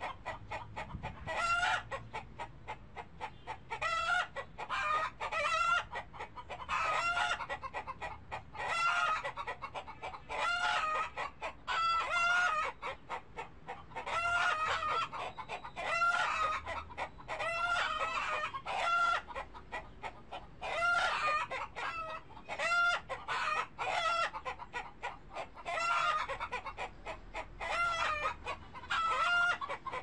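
Chickens clucking over and over, in short runs of calls every second or two.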